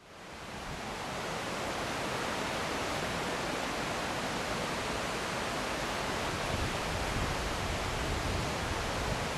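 A river rushing over rapids: a steady, even rush of water that fades in over the first second or two.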